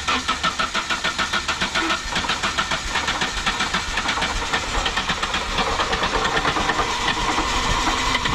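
Nissan 240SX's KA24E four-cylinder engine turning over with a loud, rapid, even pulse of about six beats a second. The sound cuts off abruptly near the end.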